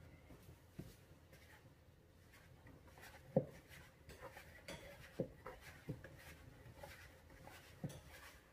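Hands kneading soft dough in a plastic mixing bowl: faint rubbing and squeezing, with about six soft thumps, the loudest about three and a half seconds in.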